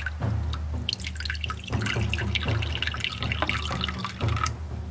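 Water poured from a glass cup into a shallow water dish, splashing and trickling in a quick run of small drips for about three and a half seconds.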